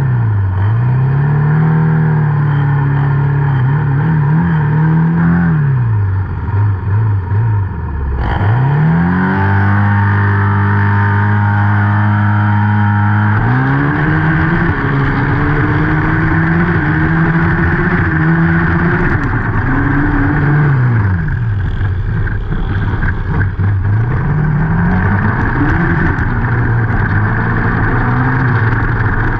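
Junior racing quads (youth ATVs) running flat out, their small engines revving, with the pitch climbing and falling again and again as the riders open and back off the throttle, and held steady for a few seconds about a third of the way in.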